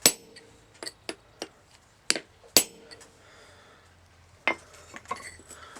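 Hammer tapping a hand-forged center punch into steel square tubing: several sharp metallic clinks at uneven intervals, some ringing briefly, as the punch marks dots in the steel.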